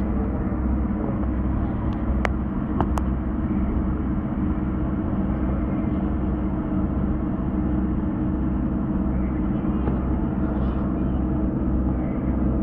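Boat engine running steadily: a low drone with a slow, even throb underneath.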